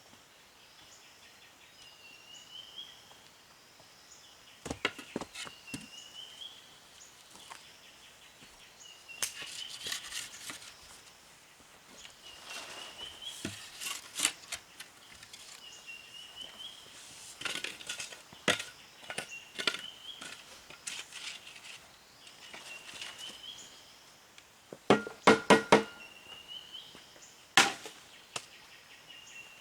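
Scattered clusters of sharp knocks and taps, like wood being handled or chopped, the loudest a quick run of four about 25 seconds in. Behind them a short rising chirp repeats every three to four seconds.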